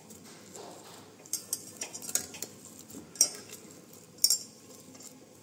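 Boiled potato being mashed by hand in a stainless steel pan, with a handful of sharp, irregular metallic clinks and knocks against the pan, the loudest a little after three seconds and at about four seconds.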